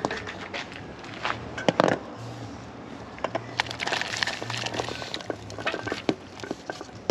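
Ackee tipped from a stainless-steel bowl into a pot of simmering water: a few sharp clinks and knocks of metal on metal about a second and a half in, then a spell of splashing as the pieces slide into the water around four seconds in.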